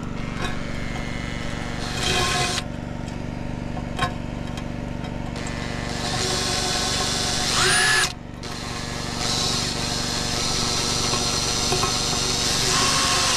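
Makita cordless drill driving screws through a roof verge tile, in several runs: a short burst about two seconds in, a longer run from about six seconds that ends in a rising whine, then long runs from about nine seconds on.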